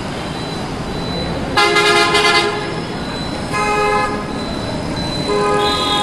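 Ashok Leyland sleeper bus's horn sounding three blasts over traffic noise: the loudest, lasting about a second, comes a second and a half in, a shorter one comes near the middle, and a third starts near the end.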